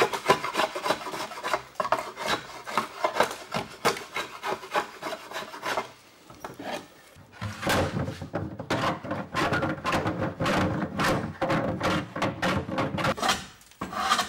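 A hand blade shaving a wooden barrel stave: quick scraping strokes for about six seconds, a brief pause, then fuller, denser rasping strokes until near the end.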